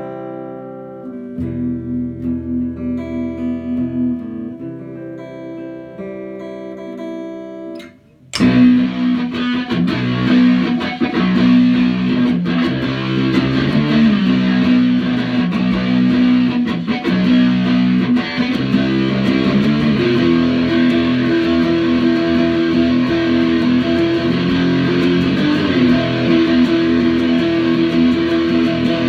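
Guitar playing rock: clean, ringing single notes, then after a brief gap about eight seconds in, a much louder, denser riff with strong low notes.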